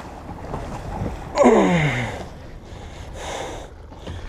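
Wind and water rushing around a small round fishing skiff as a hooked fish tows it, with a short pitched sound sliding down steeply about a second and a half in.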